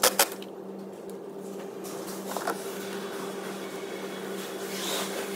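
Handling noise as the air intake hose is pushed back onto the air filter housing and its hose clip is worked with a screwdriver: two sharp clicks right at the start, then faint rubbing and scraping. A steady low hum runs underneath.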